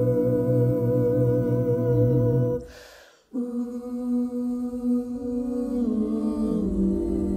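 Six-voice a cappella ensemble (soprano, two altos, tenor, baritone, bass) holding a chord on the end of a sung line, which fades out about two and a half seconds in. After a brief pause the voices come back on a hummed "ooh" chord whose parts shift pitch twice near the end.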